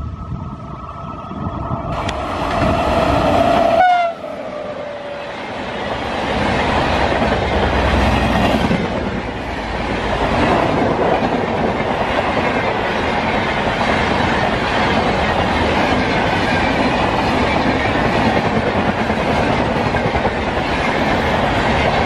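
WAP-7 electric locomotive horn sounding a long, loud blast that drops in pitch and stops about four seconds in as the locomotive goes by. Then a steady rumble and clatter of a long rake of passenger coaches passing at speed.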